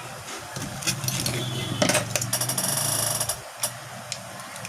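Light clicks and taps of small tools working on a smartphone, with a steady low hum lasting about two and a half seconds in the middle.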